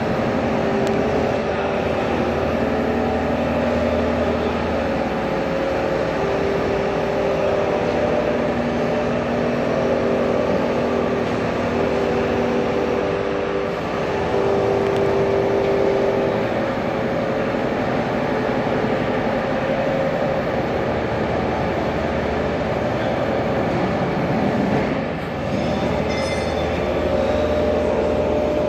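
Pipe bending machine running: a steady mechanical drone with humming tones that shift and stop partway through, and a brief dip near the end.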